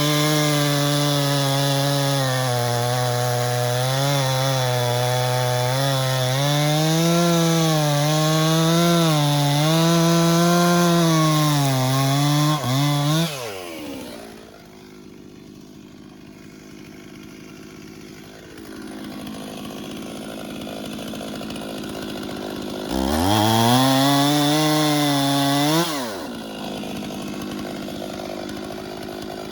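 Stihl 044 70 cc two-stroke chainsaw running at full throttle in a cut, its engine speed dipping and recovering under load, then dropping to idle a little before halfway. Near the end it is revved up once for a few seconds and falls back to idle.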